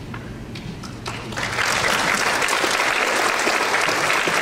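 Audience applauding at the end of a talk. The clapping starts about a second in and stays even and steady, with a few faint clicks before it.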